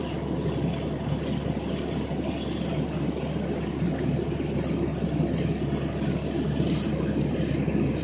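Fire department pickup brush truck with a skid-mounted pump running, a steady low engine rumble.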